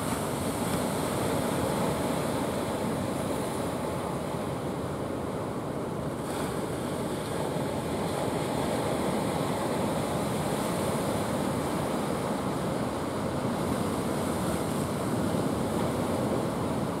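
Surf and sea wash, a steady even rush of waves, with some wind noise on the microphone.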